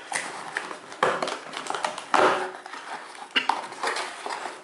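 Rubik's cube box and its wrapping being opened by hand: irregular rustling and crinkling, with sharper snaps about one and two seconds in.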